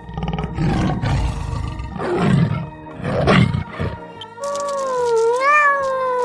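A big cat roaring in three rough, low pulses, followed about four and a half seconds in by a long drawn-out cat meow that rises and falls in pitch.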